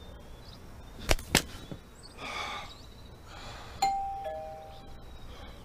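Two sharp smacks a quarter second apart about a second in, then a two-tone doorbell chime about four seconds in: a higher ding followed by a lower dong, each fading away.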